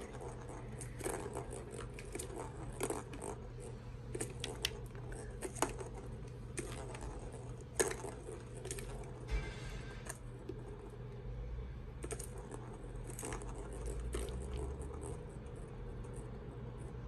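Plastic balls clicking and clattering round the tracks of a tiered plastic ball-track cat toy as kittens bat at them, in irregular bursts with a few sharper knocks.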